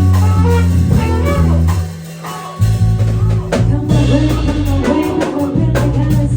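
A band playing: sustained bass notes under a drum kit and pitched instruments. The bass and most of the sound drop away for about half a second about two seconds in, then the groove comes back in with the drums more prominent.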